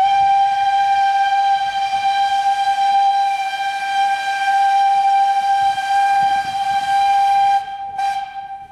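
Steam whistle of the Ty42-107 steam locomotive blown in one long steady blast of about seven and a half seconds, then briefly cut and sounded again in a short second blast near the end.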